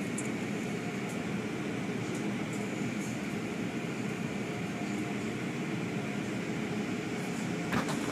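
Steady running noise of an automatic tunnel car wash heard from inside the car, with a louder rush of spray or brushes starting just before the end.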